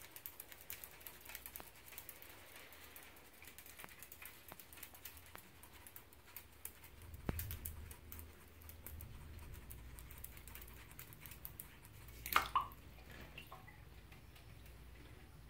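Striped skunk moving and paddling in shallow bathwater in a bathtub: a run of small splashes, drips and light taps. About twelve seconds in, a brief sharp squeak falls in pitch.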